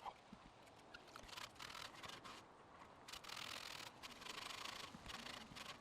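Faint, irregular scrubbing strokes on a rusty bird feeder, each a brief scratchy rasp with short pauses between.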